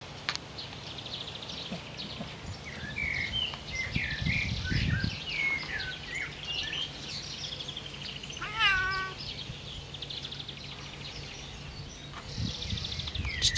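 A Bengal cat gives a single meow about two-thirds of the way through, over garden birds singing with chirps and buzzy trills.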